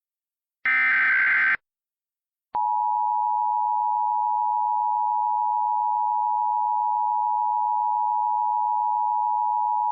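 Emergency Alert System tones: a burst of the SAME digital header's warbling data tones, about a second long, then after a second of silence the steady two-tone EAS attention signal (853 and 960 Hz together) starts and holds.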